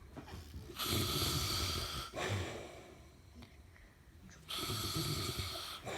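An elderly man snoring in his sleep: two loud snores, each lasting over a second, about four seconds apart, with quieter breathing between them.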